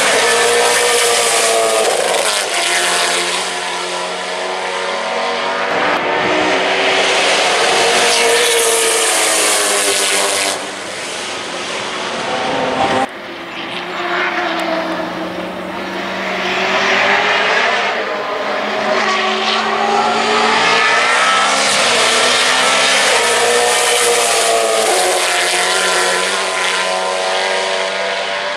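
Holden Commodore V8 Supercar's V8 engine at racing speed, loud. It rises in pitch again and again under acceleration and drops back off the throttle. About halfway through there is an abrupt break in the sound.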